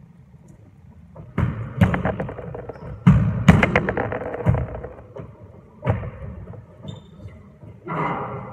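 Squash players' quick footsteps and shoe scuffs on a wooden court floor, in several bursts of movement with thuds echoing off the court walls.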